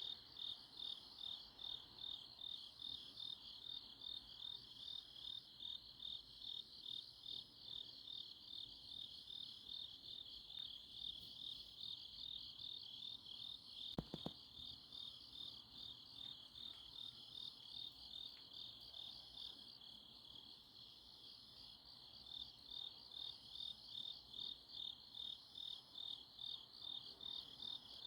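Crickets chirping on an autumn night, a steady high trill pulsing about two to three times a second. A single sharp click about halfway through.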